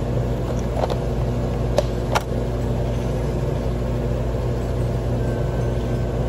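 Wire spring-forming machine running with a steady low hum, with a few sharp metallic clicks in the first couple of seconds as the tooling works the wire.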